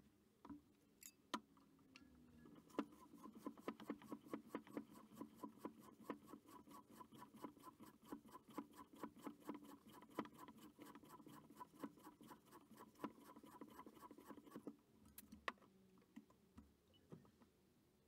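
Floor pump inflating a tubeless mountain-bike tyre: a long run of quick, even pump strokes, with a few separate clicks and knocks before it starts.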